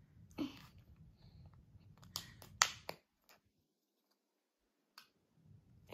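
Quiet handling, then a quick run of four sharp clicks and snaps a little past two seconds in as a small spoon is pried out of a Häagen-Dazs mini cup lid. The sound then drops out almost completely for about two seconds.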